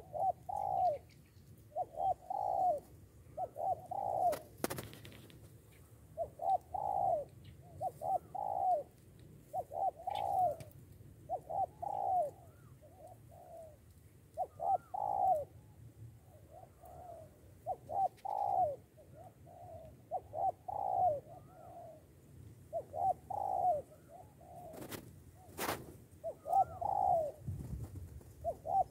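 Spotted dove cooing over and over in short phrases of two to four low notes, with a couple of sharp clicks between phrases.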